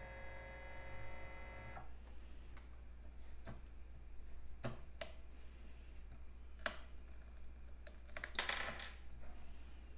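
A steady whine cuts off about two seconds in. Then come scattered sharp clicks and taps, and a dense clatter of clicks and scraping near the end, as the magnetic build plate of a Tina 2 mini 3D printer is handled and slid out by hand.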